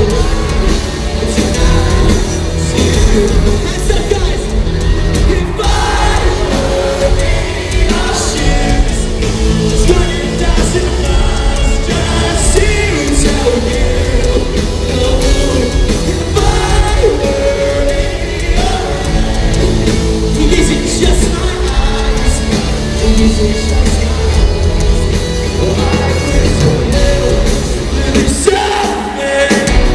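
Live rock band playing in an arena: drums, bass and guitars with a lead vocal, loud and continuous.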